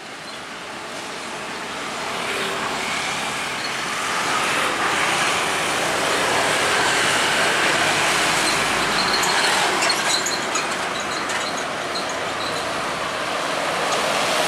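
Hino tanker truck towing a stainless-steel tank semi-trailer drives past close by. Its engine and tyre noise swells over the first few seconds and stays loud as the trailer's axles roll past.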